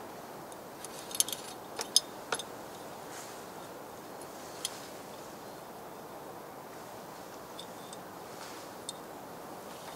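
Small sharp metallic clicks and clinks from hands and tools working on the underside of a Honda Acty van during an oil and filter change. A quick cluster comes in the first two and a half seconds, then single clicks about halfway through and near the end, over a faint steady hiss.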